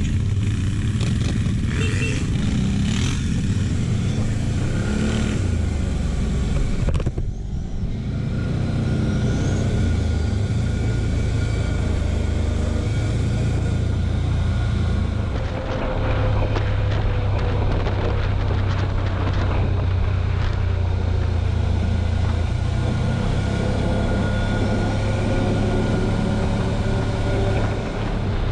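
Quad bike (ATV) engine running steadily under way, a low drone with wind and road noise on the camera microphone. The sound breaks off briefly about seven seconds in, then carries on.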